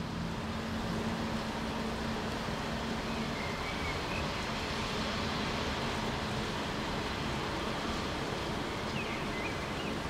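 Steady outdoor background noise of rain and wind, with a low hum for the first three seconds or so. A few faint, short bird chirps come about four seconds in and again near the end.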